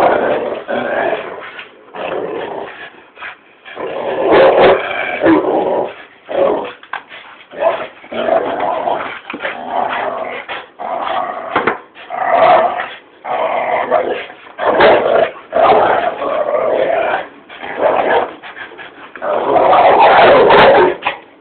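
A pit bull and a second dog growling at each other as they grapple, in irregular loud bursts. The longest and loudest stretch comes near the end.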